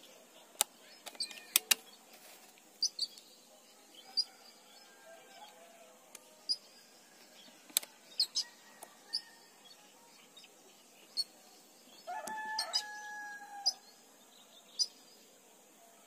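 Small birds chirping in short, high notes, with a few sharp clicks. About twelve seconds in, a rooster crows once, a held call of under two seconds that falls slightly at the end.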